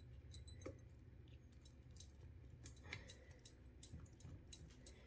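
Near silence: faint, scattered light clicks and small taps of handling, over a low steady hum from the cup spinner's motor.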